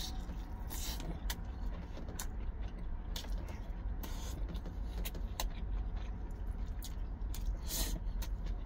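Steady low rumble of a truck's cab with the engine idling, overlaid by close chewing and short mouth clicks from someone eating.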